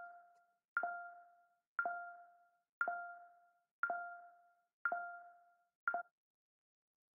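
Looping notification tone used as a filter's warning alert: a bell-like ding repeating about once a second, each ring fading away, until it is cut off short about six seconds in. It sounds while the face is closer than two metres to the camera and stops when the distance is safe again.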